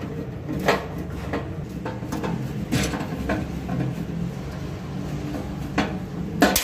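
Sharp clicks and clanks of hand tools and small metal parts being handled against a steel electrical panel enclosure, a few scattered knocks with the loudest near the end, over a steady low hum.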